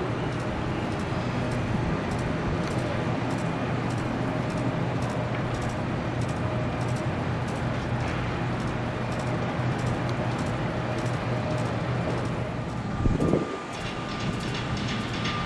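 Steady low drone of heavy machinery running, with a constant hum and faint regular ticking, and a brief louder rumble about 13 seconds in.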